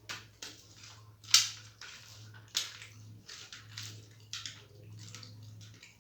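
Close-up eating sounds: a person chewing and smacking a soft, wet mouthful of rice with masoor dal and mashed boiled potato, a string of short irregular mouth noises with the sharpest one about a second and a half in. A low steady hum runs underneath.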